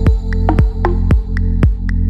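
Electronic background music with a steady kick drum, about two beats a second, under sustained synth notes and crisp high clicks.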